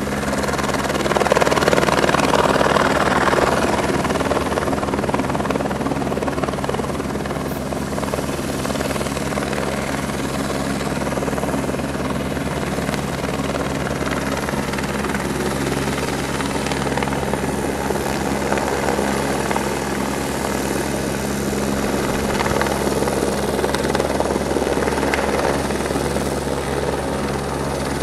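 Police helicopter's rotor and engine running steadily, with a continuous beat of the blades; it swells louder twice, about two seconds in and again near the end.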